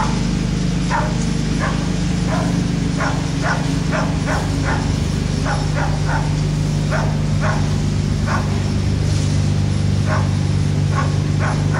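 A dog barking over and over at an uneven pace, over a steady low hum.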